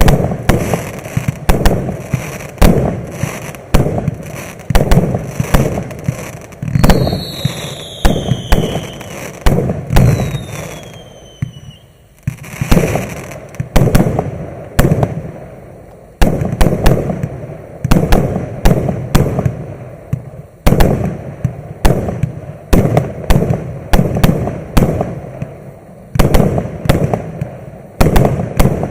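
Maxsem MC146 'Explosive' fireworks battery firing a long series of shots, sharp bangs coming about one or two a second. Two falling whistles sound about a quarter of the way in, and the firing briefly slackens twice before carrying on.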